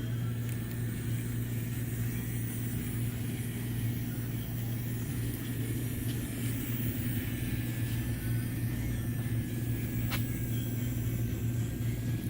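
Model train running on the layout: a steady low hum with a faint high motor whine that drifts slightly lower, and a single sharp click about ten seconds in.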